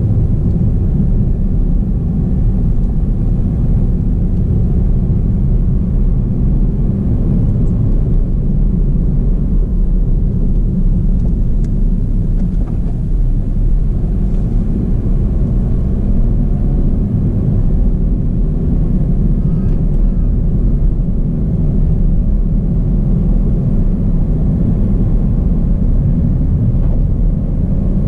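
Steady low rumble of a car's engine and tyres on the road surface while driving, heard from inside the cabin.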